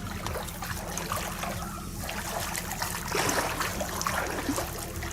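Water flowing and splashing in irregular bursts, over a low steady hum.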